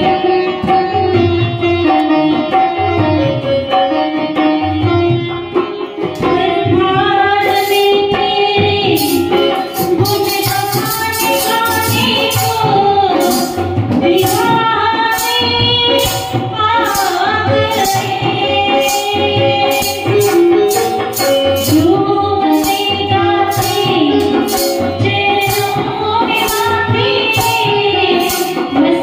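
Woman singing a Hindi devotional bhajan (a jagrata song to the Mother Goddess) into a microphone, accompanied by a keyboard. A steady percussion beat comes in about six seconds in and keeps time under the singing.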